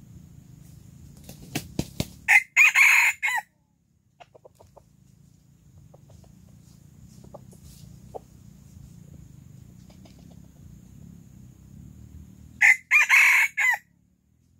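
Rooster crowing twice, about ten seconds apart, each crow short at about a second long. A few sharp clicks come just before the first crow.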